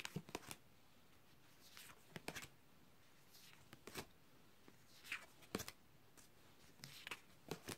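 Tarot cards flipped one at a time off the top of a deck: faint, short swishes and taps of card on card, a pair of them about every second or so, in a quiet room.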